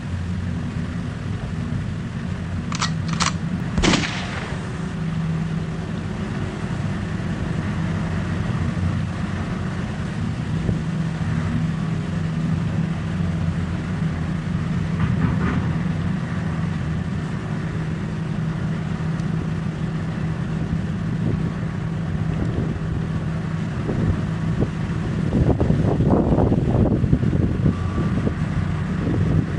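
Heavy mining machinery's diesel engine running steadily with a low hum. A few sharp knocks come about three to four seconds in, and near the end the sound grows louder and rougher with a clattering rumble.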